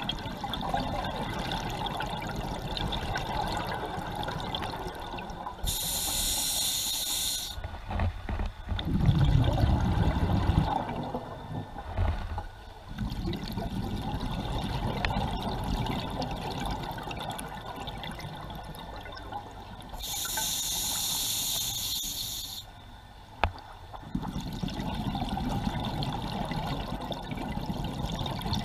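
Scuba diver breathing underwater through an open-circuit regulator. Twice, about 6 and 20 seconds in, an inhalation draws a short hiss from the demand valve, and each is followed by the low bubbling rumble of exhaled air.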